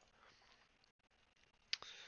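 Near silence, broken by a single short click about three-quarters of the way through.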